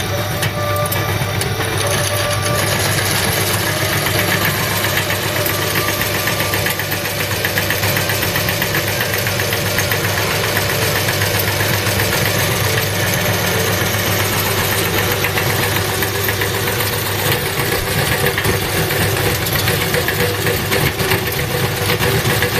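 Motor-driven meat-grinder machine running steadily.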